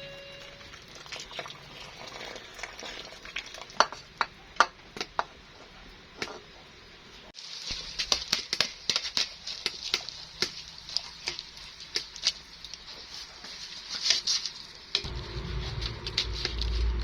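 Cooking sounds: scattered light clicks and taps for the first seven seconds, then, after an abrupt change, food sizzling with a steady hiss and dense crackles. A low rumble joins in about fifteen seconds in.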